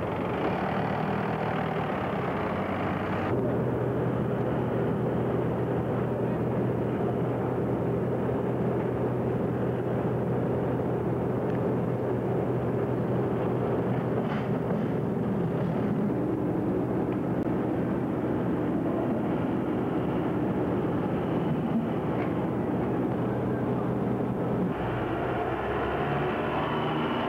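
Ship's diesel engine running with a steady drone and a low hum. The sound changes abruptly about three seconds in and again near the end.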